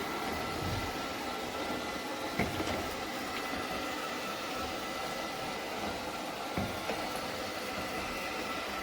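ILIFE V5s Plus robot vacuum running on the floor: a steady motor and fan hum with a thin whine, with a few light knocks along the way.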